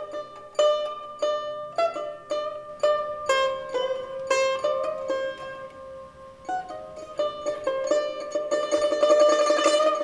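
Instrumental music on a solo plucked string instrument: separate picked notes, a few held longer in the middle, then a fast, louder tremolo near the end.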